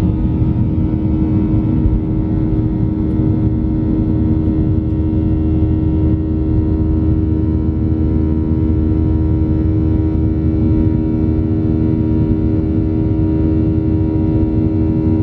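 Boeing 737-900's CFM56 jet engines heard from inside the passenger cabin: a steady, loud rumble with a constant hum that does not change pitch.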